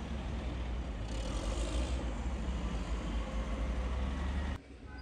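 Heavy diesel machinery running with a steady low rumble and clatter, as with a bulldozer or excavator clearing rubble; it cuts off suddenly near the end.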